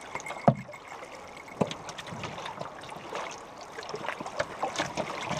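River water splashing and gurgling against the bow of a moving canoe, with many small splashes. There is a sharp knock about half a second in and another at about 1.6 seconds.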